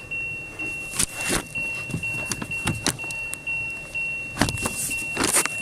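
Sharp metal clinks and knocks from steering parts and tools being handled, as the steering universal joint is worked off the rack shaft. Behind them an electronic beep repeats about twice a second throughout.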